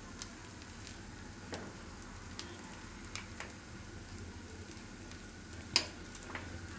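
Oil sizzling faintly and steadily under appe in a non-stick appe pan on a gas stove as they finish cooking. A few light clicks come from a steel knife touching the pan, the sharpest near the end.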